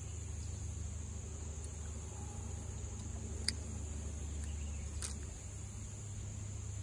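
Creekside ambience: a steady high insect drone of crickets over a low steady rumble, with two short sharp clicks, one about halfway through and one a second and a half later.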